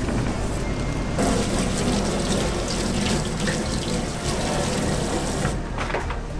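Kitchen tap running into a stainless steel sink while a gloved hand is rinsed under the stream. The water starts about a second in and cuts off near the end.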